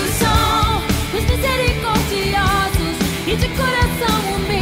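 Background song: a voice singing over a full band with a steady drum beat.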